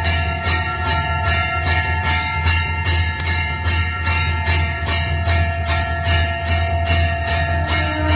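Temple bell rung in a fast, even rhythm of about three strikes a second. Its ringing tones overlap into one continuous sound, over a steady low drone.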